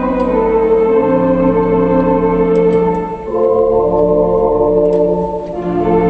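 Theatre organ playing held, sustained chords, changing chord about three seconds in and again near the end.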